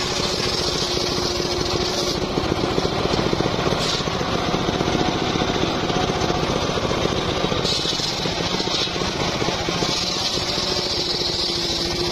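Homemade circular sawmill ripping a large teak log, its machinery running with a steady drone. The high hiss of the blade cutting comes and goes: over the first two seconds, briefly around four seconds, and again from about eight and ten seconds in.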